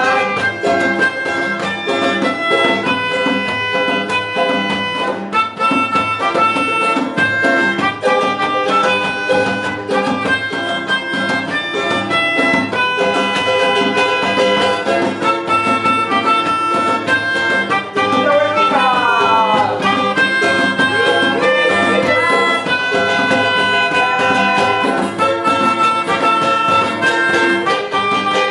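A band playing an instrumental passage of the song with no singing: a steady run of held melodic notes over a rhythmic accompaniment, with a brief sliding run of notes about two-thirds of the way through.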